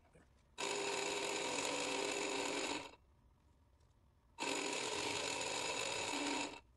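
Small electric motor of a home-built cork lathe spinning a rod handle, switched on twice for about two seconds each time and cut off between runs: a steady whine that starts and stops sharply.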